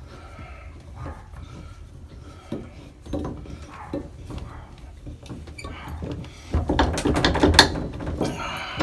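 Metal clicks and scraping as a handle puller is worked against a stuck shower valve handle, growing louder and busier about two-thirds of the way in.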